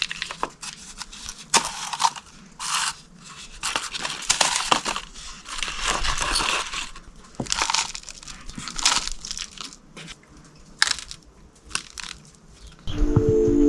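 Irregular rustling and crunching in short, uneven bursts, as of dry material being handled or stepped on. Music begins near the end.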